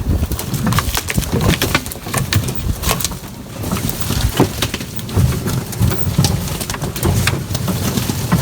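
Vehicle driving along a rough woods trail: a low engine rumble with frequent knocks and rattles from the bumpy ground.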